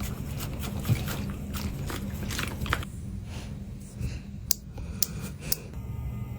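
A dog gnawing a teeth-cleaning chew bone, its teeth scraping and crunching in quick clicks through the first half. After that the chewing eases off to a few sharp single clicks.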